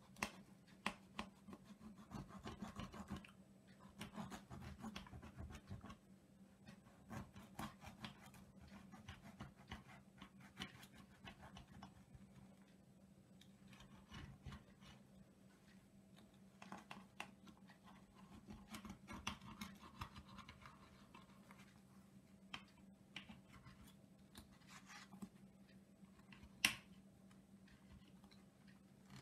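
Knife sawing through a crisp pan-fried flatbread pie on a plate: faint repeated rasping strokes with small clicks of the blade against the plate, and one sharper click near the end.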